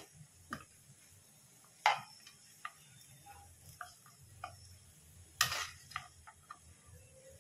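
Metal spatula knocking and clinking against a pan while stirring poha: irregular sharp knocks, the loudest about two seconds in, with a longer one about five and a half seconds in followed by a quick cluster of lighter taps.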